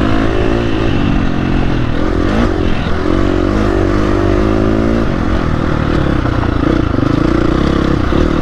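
Dirt bike engine running under changing throttle on a gravel trail, its pitch rising and falling several times in the first half and holding steadier later.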